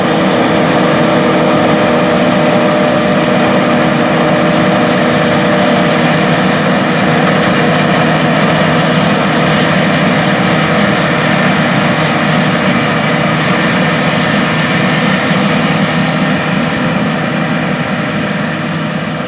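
A John Deere S780 combine running steadily under load as it harvests wheat: a loud, even machine hum with several steady engine tones. It fades slightly near the end.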